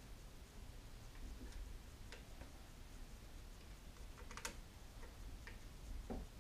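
Faint, irregular small metal clicks of a T-handle hex key working the screws of a CNC router's Z-axis carriage, with a quick cluster of clicks about four and a half seconds in.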